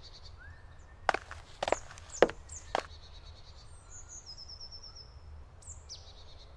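Songbirds singing, with a descending trilled phrase near the start and again near the end and a quick run of high notes in between. Four footsteps land on the path between about one and three seconds in.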